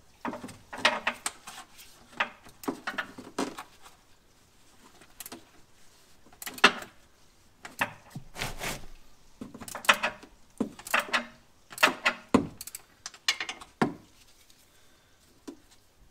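Irregular knocks, scrapes and rattles of hands working under a car, bringing in an oil drain pan and unscrewing a loosened spin-on oil filter. The noises stop about two seconds before the end.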